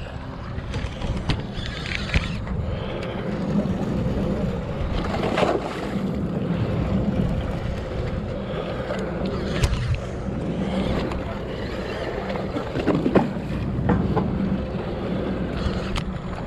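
Steady low drone of a sportfishing boat's engine, with wind and water noise. A few sharp clicks and knocks sound close to the microphone.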